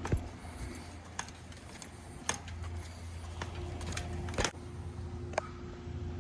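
Scattered sharp clicks and knocks of objects being handled, about eight spread irregularly, over a low steady hum.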